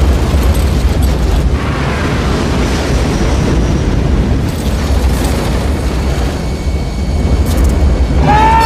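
A huge fireball explosion as a film sound effect: a continuous heavy, rolling rumble. Near the end a held high note comes in over it.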